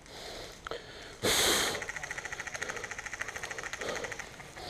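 Airsoft guns firing on full auto, a rapid, even rattle of shots. A short, loud rush of noise comes about a second in.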